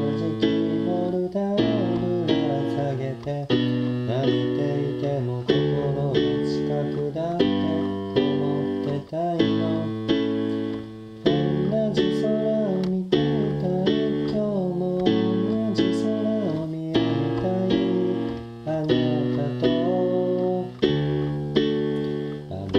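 Rock band music with guitar to the fore over a steady drum beat, and no clear vocal line.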